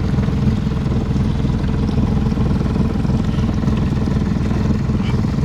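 A boat's outboard motor running steadily as the boat cruises, a continuous low rumble with a fast, even pulse.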